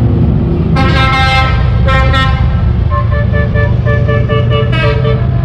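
Vehicle horns sounding from passing convoy vehicles: a long blast about a second in, a second blast about two seconds in, then a run of short rhythmic toots, over the steady low rumble of engines driving by.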